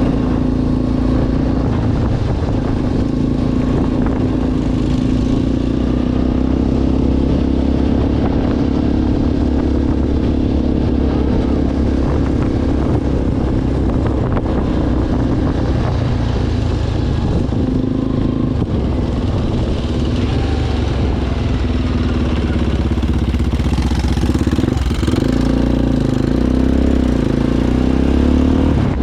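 ATV engine running steadily under way, its pitch shifting a little with the throttle.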